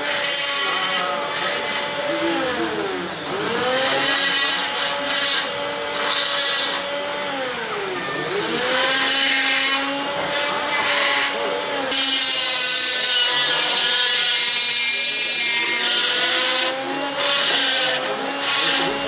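High-speed hand-held rotary carving tool cutting into wood with a small bit: a steady motor whine over a hiss of cutting. The whine sags in pitch and recovers several times as the bit bites in under load.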